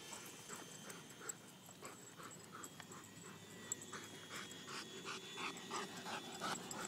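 A dog panting in quick, rhythmic breaths, about three a second, louder in the second half.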